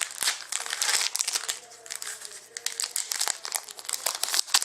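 A trading card pack's wrapper crinkling and rustling as it is torn open and handled, with quick irregular crackles.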